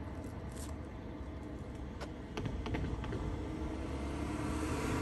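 Light rail tram running on a test run, its low rumble and hum building steadily towards the end as it draws nearer, with a few sharp clicks about two to three seconds in.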